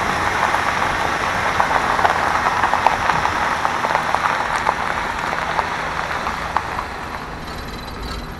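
Tyres of a slow-rolling 4x4 crunching and crackling over a gravel dirt track, with a low engine rumble underneath; the crunching grows quieter near the end.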